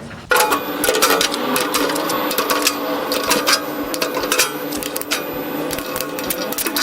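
A small machine clattering, with rapid irregular clicks over a steady hum, starting abruptly just after the start.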